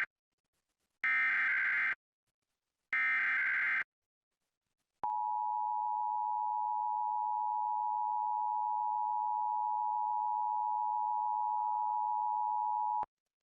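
Emergency Alert System header: the tail of one burst of SAME data tones and two more full bursts, each about a second of buzzy warbling. About a second later comes the EAS two-tone attention signal, a steady harsh dual tone held for about eight seconds and then cut off. Together they open an EAS required monthly test.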